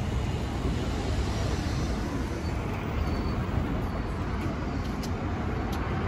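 City street traffic noise: a steady low rumble of car engines and tyres.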